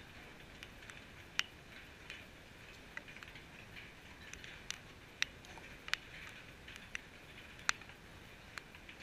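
Faint outdoor hiss with scattered short, sharp ticks at irregular intervals, a few of them much louder than the rest.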